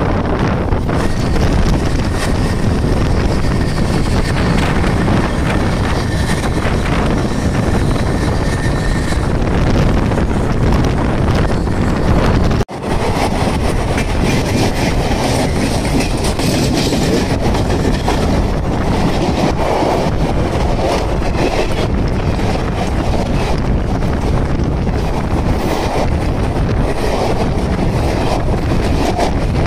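Express train running at speed, heard from aboard: steady loud rumble of the coach and its wheels on the rails. The sound breaks off for an instant about thirteen seconds in.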